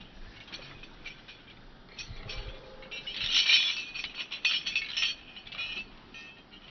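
A dog's heavy metal link-chain collar and chain leash clinking and rattling as the dog moves, loudest in a cluster about halfway through.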